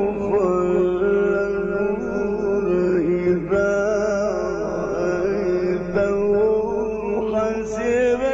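A male Quran reciter chanting in the melodic mujawwad style, drawing out long, ornamented held notes with no breaks between phrases.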